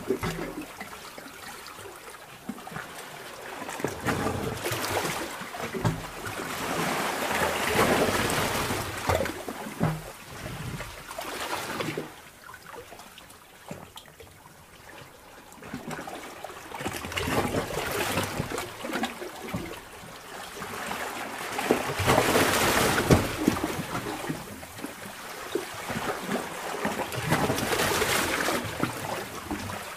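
Sea water surging in and out of a sea cave: swells of sloshing, trickling water that rise and fall every four to six seconds.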